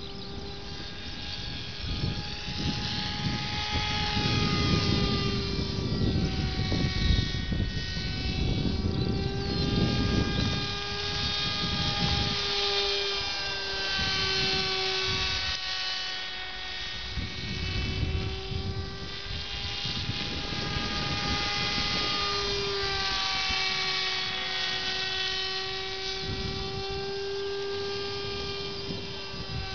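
Electric motor and propeller of a battery-powered RC pusher model airplane flying overhead: a steady buzzing whine whose pitch wavers up and down as the plane circles and the throttle changes. Low rumbling gusts of wind on the microphone come and go beneath it.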